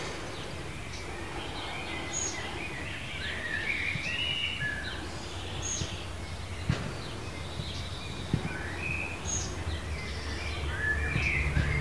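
Garden birds chirping and warbling in short, scattered phrases, over a low steady rumble that grows louder near the end.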